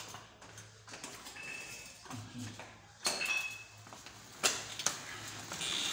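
A few light metallic clinks and clicks from gym equipment, at irregular times, with two short ringing clinks about a second and a half and three seconds in.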